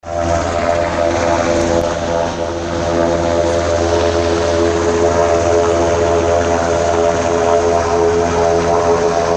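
Helicopter running steadily overhead, an even drone from its rotor and engine that holds the same pitch throughout.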